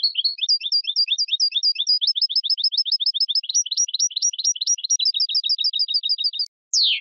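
European goldfinch singing: a fast, unbroken run of short, high, twittering notes repeated several times a second. The run stops shortly before the end, and a brief loud falling whistle follows.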